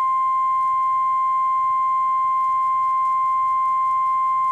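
NOAA Weather Radio 1050 Hz warning alarm tone: one steady, loud electronic tone held without a break. It is the attention signal that comes before the Severe Thunderstorm Watch message.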